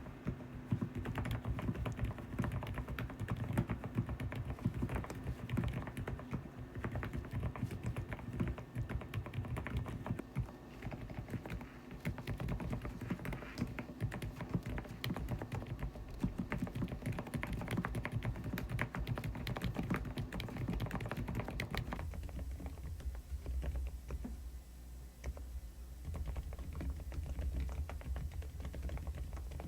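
Fast, continuous typing on a Preflow F1 PRO MAX full-size mechanical keyboard, a dense run of keystroke clacks. About 22 seconds in, the sound turns duller and deeper, losing its crisp top.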